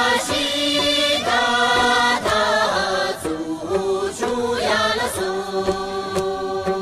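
Tibetan circle-dance song: several voices singing together in a chant-like melody over music, with a low note held underneath.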